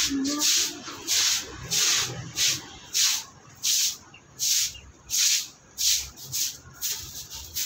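Scrubbing a wet concrete floor with powder soap: repeated rasping strokes, about two a second, slowing a little midway.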